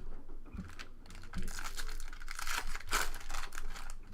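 A trading-card pack wrapper being torn open and crinkled, a rustling crackle that builds and is loudest about three seconds in.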